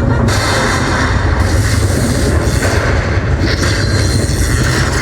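Slot machine playing a steady, loud, deep rumbling sound effect over the din of a casino floor.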